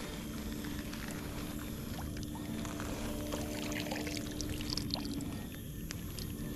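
Shallow water sloshing and pouring with scattered faint splashes, over a steady low hum.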